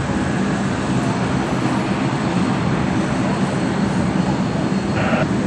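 Boeing 787 Dreamliner's GEnx jet engines giving a steady, loud rumble as the airliner lands and rolls out on the runway.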